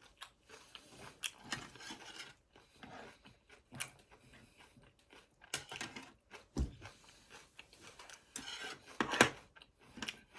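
Close-miked eating sounds: chewing and crunching, with scattered small clicks, a soft thump about two-thirds of the way through and a louder burst near the end.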